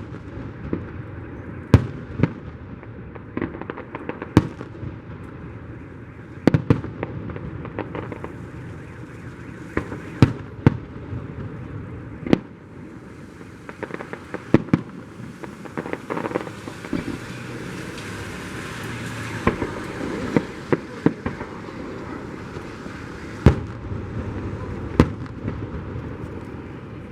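Fireworks display: aerial shells bursting in sharp bangs at irregular intervals, sometimes several in quick succession, with a stretch of crackling in the middle.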